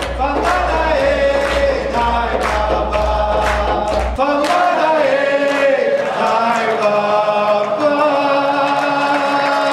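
A large group of people singing together as a choir, holding long notes, with rhythmic hand-clapping about twice a second in the first half. A low bass sound under the singing stops about four seconds in.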